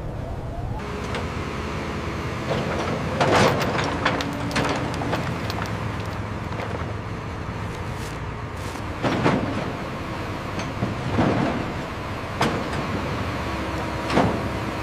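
A steady low rumble with four short whooshes rising out of it.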